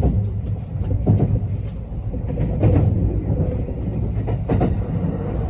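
Kintetsu 80000 series Hinotori electric train running at low speed: a steady low rumble, with its wheels clicking over rail joints every second or two, some clicks in quick pairs.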